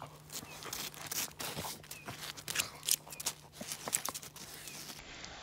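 A Finnish lapphund rubbing and pawing on a frozen puddle: irregular scraping and crackling of fur and claws on ice, with scattered sharp clicks.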